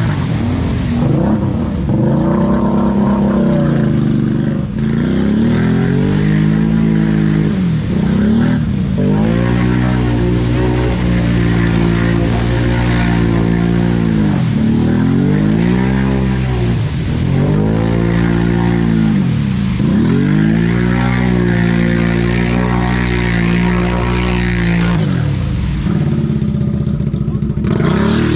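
ATV engine revved again and again, its pitch rising and falling every two to three seconds.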